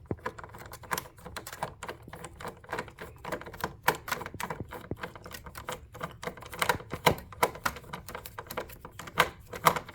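Hand screwdriver turning a screw out of a monitor stand's mounting bracket: a run of irregular clicks and ticks, with a few louder clicks near the end.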